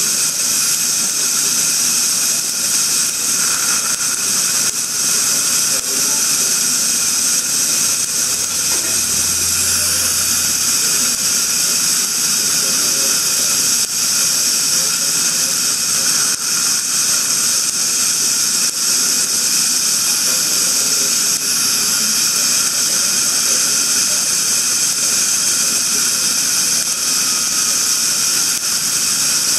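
Dental equipment running during a laser gingivectomy: a steady, loud hiss with a high whine over it, unbroken throughout, and a brief low hum about nine seconds in.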